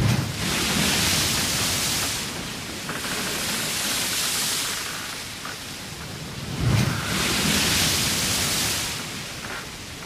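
Sea water rushing and splashing along the hull of a large ship under way. A low thump opens a surge at the start and another about two-thirds through, each followed by about two seconds of hissing spray, with a weaker wash in between.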